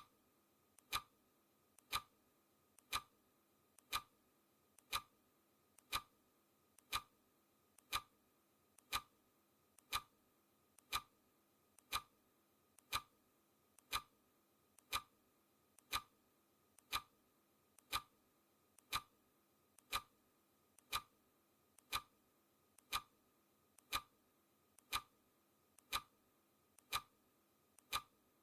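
Clock ticking sound effect: a sharp tick once a second at an even pace, with a fainter click in between each one.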